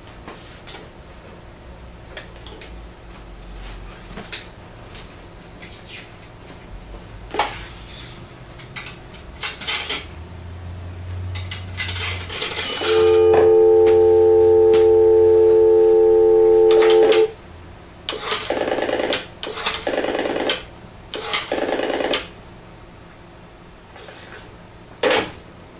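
Antique Western Electric three-slot payphone in use. After some handling clicks, a steady two-tone dial tone sounds from the handset for about four seconds and cuts off abruptly. Four short noisy bursts follow, and a sharp knock near the end comes as the handset is hung back on its hook.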